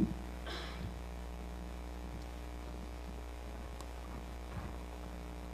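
Steady low electrical mains hum, with a brief soft rustle about half a second in and a few faint small ticks.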